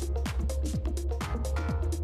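Background music with a steady beat and deep bass.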